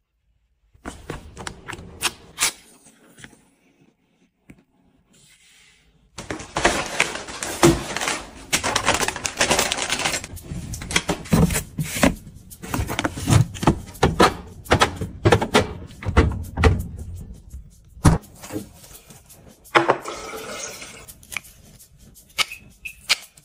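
Close handling sounds: a dense run of knocks, clicks and rustling as plastic food storage boxes are taken out of and pushed into a freezer. Near the end come quieter rustles and snips of scissors trimming flower stems.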